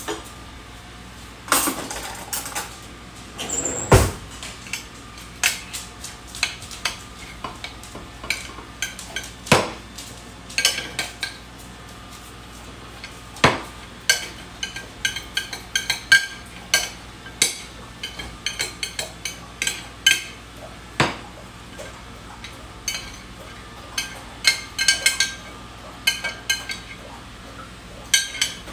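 Metal utensil scraping and clinking against a glass baking dish while a noodle bake is scooped out onto a plate, with one heavy thud about four seconds in.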